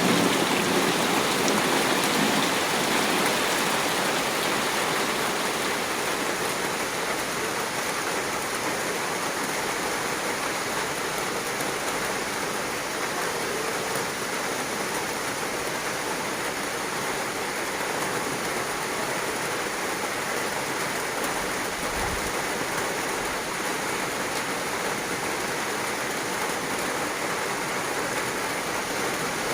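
Heavy rain falling steadily. The tail of a thunder rumble dies away in the first few seconds, and then the rain carries on evenly.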